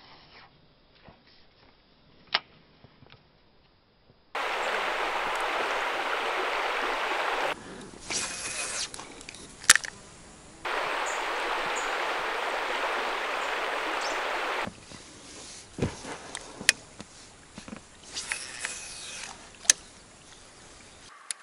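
Short clips of fishing from a packraft. Two stretches of steady rushing noise, each a few seconds long, cut in and out abruptly. Between them, quieter stretches carry scattered sharp clicks and ticks from the spinning rod and baitcasting reel.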